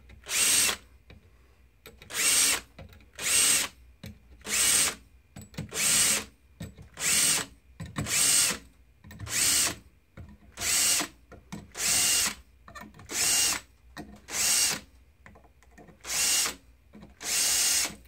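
Cordless drill spinning a wire-bristle primer pocket brush in short bursts, one per case, cleaning the primer pockets of .223/5.56 brass. About fourteen brief whirring spurts come evenly spaced, a little under one a second, with short pauses as the brush moves to the next case.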